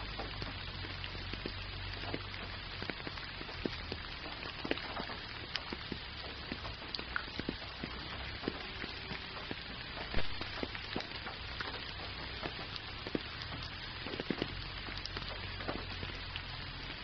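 Gentle rain falling, a steady hiss dotted with many separate, close drop taps; one drop lands louder about ten seconds in.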